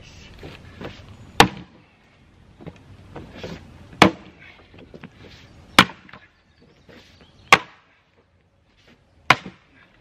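Splitting axe chopping into a firewood round held upright in a tire: five sharp, loud chops, one about every second and three-quarters, with the wood cracking and splinters shifting between strikes.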